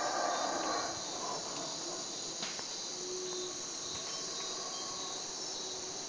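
Yucatán black howler monkeys calling, a rough chorus that fades about a second in. Under it runs a steady, pulsing chorus of night insects and crickets.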